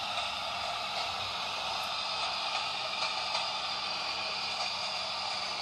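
Steady hiss-like noise with a few faint ticks.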